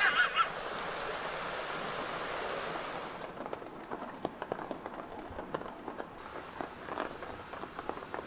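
Steady rushing of rain and a rain-swollen creek, opened by a brief high-pitched call. After about three seconds the rush drops and gives way to scattered drips and light taps of rain.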